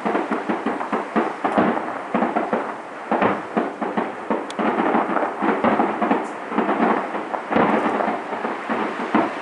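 Fireworks going off in a dense, continuous barrage: many bangs and crackles overlapping one another with no pause, swelling louder in clusters.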